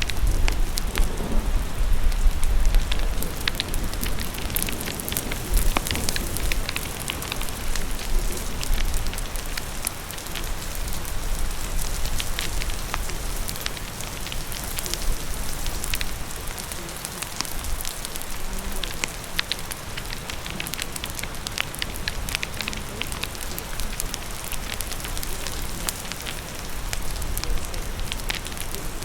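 Rain and a crackling fire together: a steady hiss of falling rain dotted with sharp pops and snaps from the fire, with a low rumble in the first few seconds.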